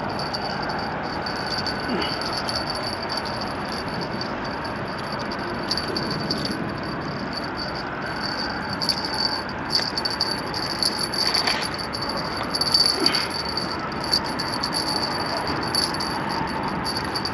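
A steady, high-pitched rattling buzz that flickers constantly, over an even background hiss, with a few slightly louder rattles in the middle stretch.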